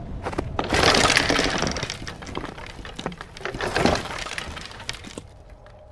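A run of cracks and crashes, like wood or glass breaking, with two loud crashes about a second in and about four seconds in, then dying away.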